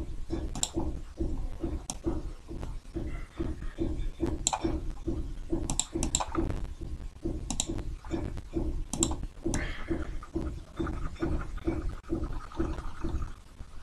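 Computer mouse clicks, a few sharp clicks spread through the stretch, over a low pulsing noise that repeats about three times a second.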